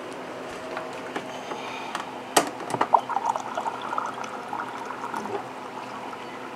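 A sharp clink, then water pouring into a container for a couple of seconds, most likely hot water to reconstitute the freeze-dried roast beef.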